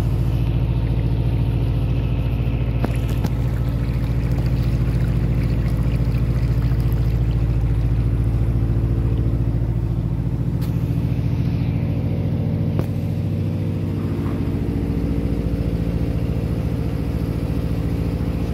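A canal boat's inboard engine running steadily at low cruising speed, a loud, even, low throb.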